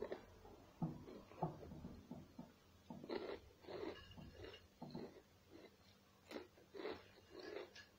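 A person eating: soft, irregular chewing and mouth sounds close to the microphone.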